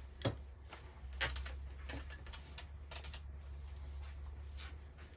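Handling noise from a freshly fleshed beaver pelt being moved about: light knocks, clicks and rustling, the two sharpest about a quarter second and just over a second in, over a steady low hum.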